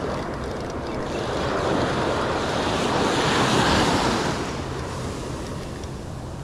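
Ocean surf breaking on the beach: a wave builds, peaks about three to four seconds in, then fades as it washes out. Wind rumbles on the microphone underneath.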